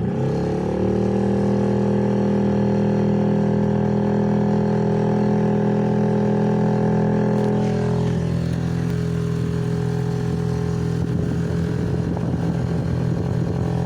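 Small sailboat's motor opened up to full throttle: its note rises in the first second, then runs steady at high revs. About eight seconds in the note drops a little and turns rougher.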